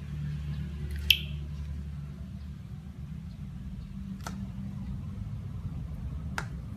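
Slime being pressed and squished, with a few sharp clicking pops: a loud one about a second in and two fainter ones later, over a steady low hum.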